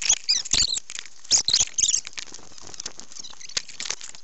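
Handling noise on a keychain camera taped to a model rocket: hands gripping and rubbing the rocket body and tape right at the camera's microphone, giving scuffing, squeaky rubbing and clicks in irregular bursts. The bursts are densest in the first two seconds, then thin to scattered clicks.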